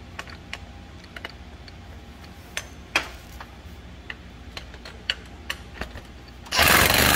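Scattered clicks and taps of a socket, extension and tools on metal, then near the end a power wrench starts up loud on a bolt and runs steadily with a fast rattle.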